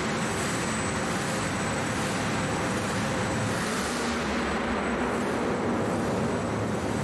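The multi-supercharged engine of the THOR custom show truck running steadily, a dense, even mechanical noise.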